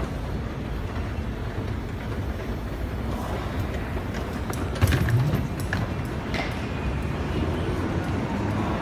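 Steady low rumble of an Underground station heard from a moving escalator. A few clicks and a sudden clatter come about halfway through as a wheeled suitcase rolls off the escalator's end plate onto the floor.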